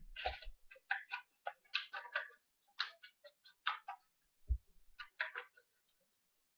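Paper and card being handled on a desk: faint, irregular crisp rustles and ticks, with a soft thump on the table at the start and another about four and a half seconds in.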